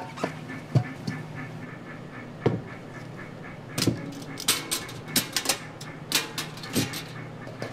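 A few dull knocks of cut Korean radish chunks shifted in a stainless-steel bowl. From about four seconds in, a run of sharp metallic clinks and rattles comes from a perforated stainless-steel steaming basket as its wire handle and lid are handled. A steady kitchen hum sits underneath.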